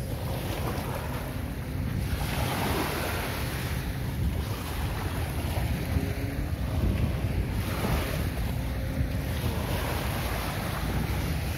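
Small waves breaking and washing up a sandy shore, the surf swelling and fading every few seconds, with wind buffeting the microphone.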